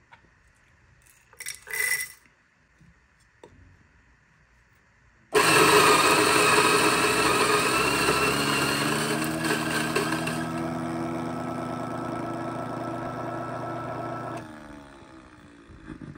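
Turin DF64P flat-burr coffee grinder switched on about five seconds in, its motor running and grinding beans for about nine seconds, the hum slowly dropping in pitch and the gritty top end thinning out partway through, then cutting off. A short clatter comes about two seconds in.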